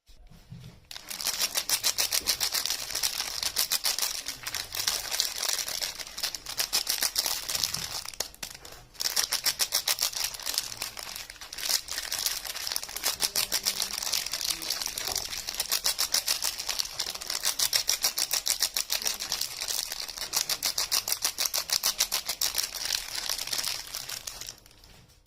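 Soap packaging being handled and unwrapped close to the microphone: a fast, continuous crinkling and crackling made of many tiny clicks, with a brief pause about nine seconds in.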